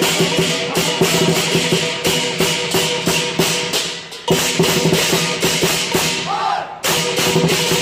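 Lion dance percussion: a large drum beaten in rapid strokes with clashing cymbals and a ringing gong. The playing dips briefly twice and comes back in with a hard stroke each time.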